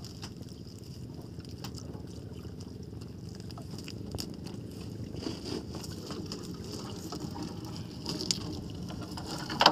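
Water sloshing and dripping around a small fishing boat, with scattered light knocks and one sharper knock near the end.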